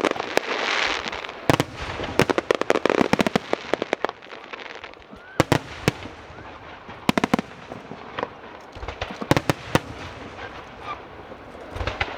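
Aerial fireworks going off: clusters of sharp bangs and crackles, a new cluster every couple of seconds.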